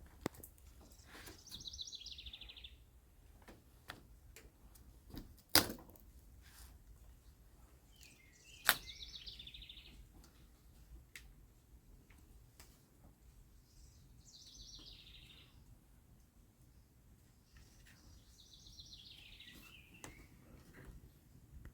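A songbird sings a short, rapid trilled phrase four times, each one falling slightly in pitch, over faint outdoor background. A few sharp clicks come in between, two of them loud, about five and a half and nine seconds in.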